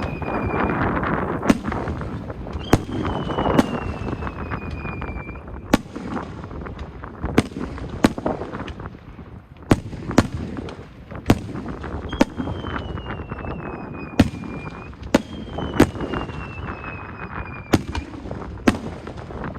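Aerial fireworks going off: sharp shell bursts about once a second, with crackling between them. Four falling whistles glide down in pitch, each lasting a couple of seconds.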